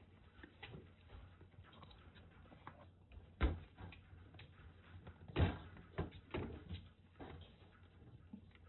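Kittens scampering and pouncing on a floor mat: scattered soft thumps and patters of paws, the two loudest about three and a half and five and a half seconds in, with a few smaller ones just after.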